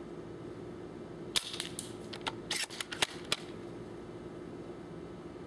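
Spring-powered bolt-action airsoft sniper rifle fires one shot with a sharp crack about a second and a half in. A quick run of sharp clicks and clacks follows as the bolt is worked to cock it for the next shot. A steady low hum runs underneath.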